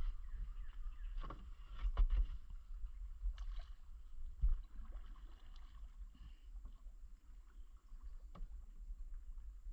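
Wooden longboat moving slowly on calm river water, with a low rumble throughout and a few short knocks of wood about once every one to four seconds.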